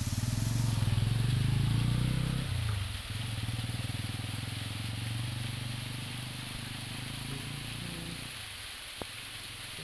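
Scooter engine running, loudest for the first two seconds, then lower and steady until it stops about eight seconds in. A steady hiss of water falling from the small waterfall runs underneath, with a single sharp click near the end.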